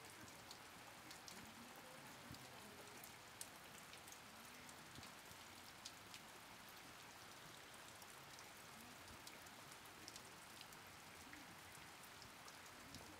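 Faint steady rain: an even patter with scattered drop ticks.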